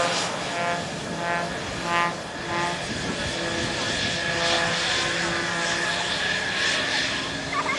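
Steady hum of an aircraft engine, with people's voices in the first few seconds.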